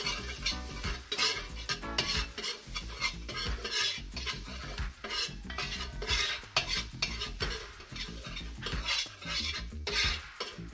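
Metal spoon stirring and scraping minced garlic around a metal pot in hot oil, with irregular scrapes of spoon on pot over a light sizzle of frying garlic.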